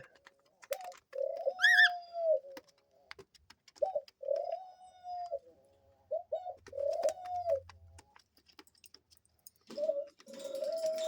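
A pet dove cooing repeatedly: short low notes and drawn-out coos about a second long, several times, with a pause before a last long coo near the end. A single brief high chirp comes about two seconds in.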